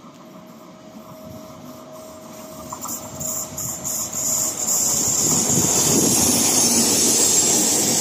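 Electric locomotive approaching and running through a station: its wheel and running noise on the rails grows from faint to loud, then holds steady from about five seconds in as it passes close by.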